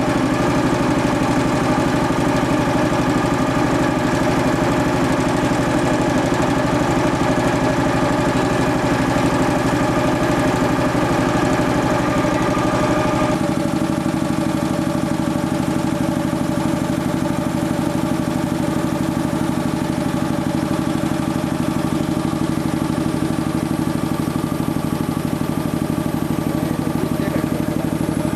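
Sperre HV2/200 air compressor running steadily on test, a continuous drone with several steady tones. About halfway through its sound changes abruptly and the deepest hum drops away.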